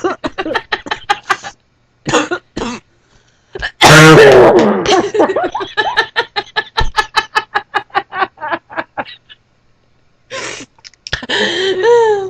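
Women coughing and laughing in fits: a loud outburst about four seconds in, then a run of quick pulses that dies away.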